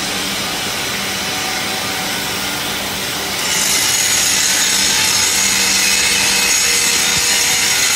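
Hand-held power grinder working a steel casting: a steady, high-pitched grinding hiss over a low workshop hum, louder and brighter from about three and a half seconds in.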